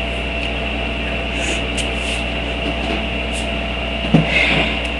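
Steady low hum and hiss of background noise, with a single short knock followed by a brief rustle about four seconds in.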